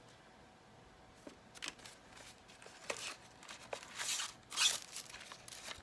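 A package of straws being torn open and handled: short rustling, crinkling and ripping sounds that start about a second in and are loudest near the end.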